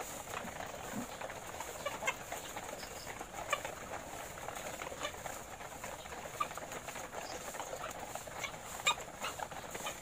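A house full of caged ready-to-lay hens clucking at feeding time: a steady murmur from many birds, with short, sharper calls standing out every second or two.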